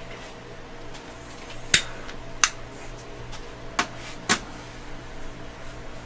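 Four sharp metal clicks from parts being handled at a metal lathe's tailstock chuck, in two pairs about two seconds apart, over a steady machine hum.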